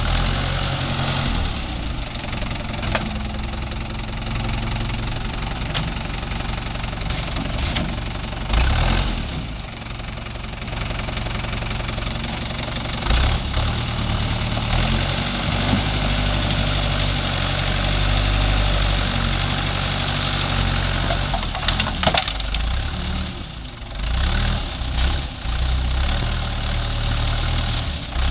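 Case 530 Construction King backhoe's engine running as the machine works, its speed rising and falling several times, with a few sharp knocks along the way.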